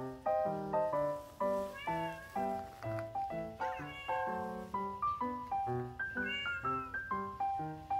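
A cat meowing three times over light background music of short, evenly paced notes that ring and fade.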